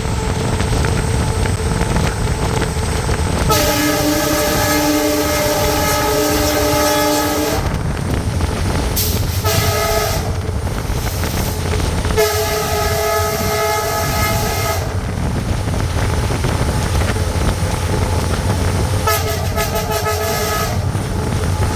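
WDP4 diesel locomotive's horn sounded four times: a long blast of about four seconds, a short one, another long one, then a shorter one. A steady low rumble of the running train carries on underneath.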